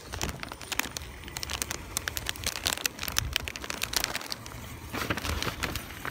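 Plastic snack bags crinkling and crackling as they are handled and shifted around in a shopping cart, with many quick sharp crackles over a low rumble.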